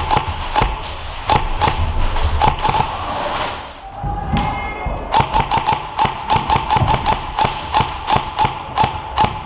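Airsoft guns firing a steady run of single shots, about three a second, each a sharp crack with a short ringing note. The shots pause for about a second, about four seconds in.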